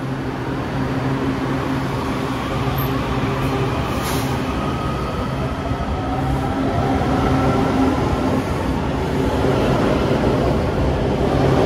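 WMATA Metrorail train pulling out of the station: a steady electrical hum, then a whine from the propulsion that rises in pitch as the train picks up speed from about six seconds in. A short hiss comes about four seconds in.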